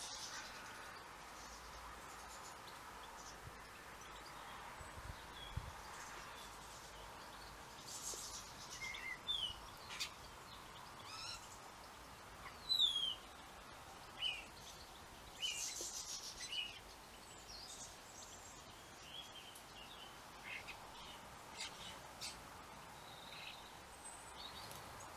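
European goldfinches calling: scattered short, high chirps and quick twittering notes, loudest about halfway through, over steady faint outdoor background noise.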